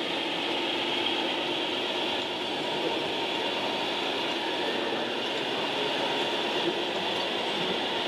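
Steady mechanical running of radio-controlled scale model trucks, an even drone with no breaks or clear strikes.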